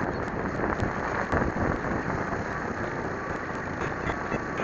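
In-flight noise of a small RC plane heard through its onboard camera's tiny microphone: a steady rushing of air and propeller noise with small crackles.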